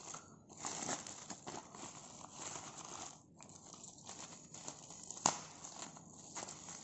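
Plastic packaging crinkling and rustling as it is handled, with scattered light clicks and one sharper click about five seconds in.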